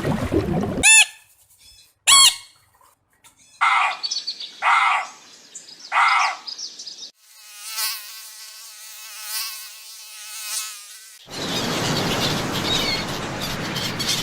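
A run of separate animal sounds: two quick sweeping bird chirps, three short calls, then a wavering insect buzz for about four seconds, and finally a dense, steady chorus of noise.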